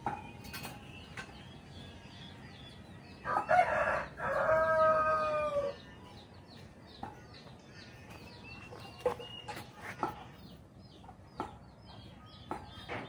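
A rooster crows once about three seconds in, a short opening note followed by a long held one. Faint, high, repeated chirps sound throughout.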